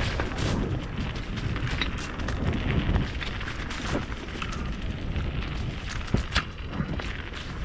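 Mountain bike descending a rough trail at speed: a steady rumble of tyres and wind on the microphone, broken by sharp clicks and knocks from the bike over bumps, the loudest about six seconds in.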